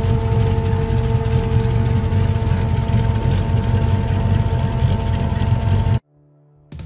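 Ford XY sedan's engine running steadily at idle, heard from beneath the car by the exhaust. It cuts off abruptly about six seconds in.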